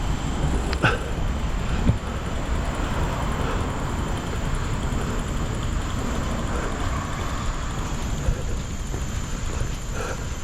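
Steady noise of road traffic, with a couple of footsteps about a second in.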